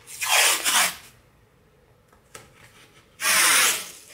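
Green FrogTape painter's tape pulled off its roll in two loud ripping pulls, the first about a second long and sliding down in pitch, the second shorter, a little after three seconds in.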